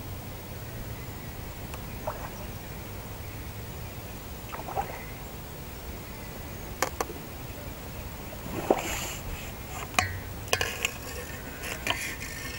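A hooked carp splashing at the surface as it is played on a pole, in a few short irregular splashes that come mostly in the second half, mixed with several sharp clicks.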